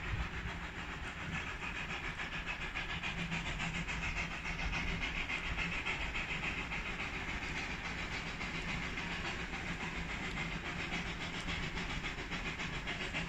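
Puffing Billy narrow-gauge steam locomotive standing at the station, giving off a steady hiss of steam.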